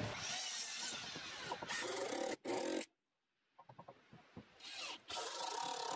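Cordless drill driving deck screws into wooden siding boards: the motor runs for a couple of seconds as the screw grinds into the wood, then after a pause runs in two shorter bursts.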